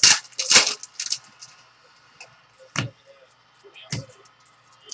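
Trading cards and foil pack wrappers being handled: a series of short, crisp rustles and clicks, several close together at first, then two more a second or so apart.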